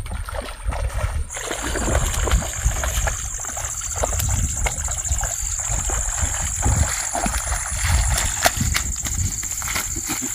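Shallow marsh water splashing and sloshing as a hooked rohu thrashes at the angler's feet and he wades out through the water and weeds, with scattered sharp splashes and footfalls. A steady high-pitched whine runs over it from about a second in.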